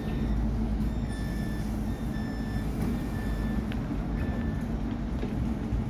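Stockholm Tvärbanan tram's door-closing warning: about five short high beeps, roughly one a second, as the doors shut, over the low steady hum of the standing tram.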